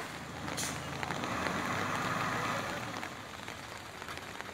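Rain hissing on a wet street while a motor vehicle passes. Its engine and tyre noise swells about a second in and fades after about three seconds.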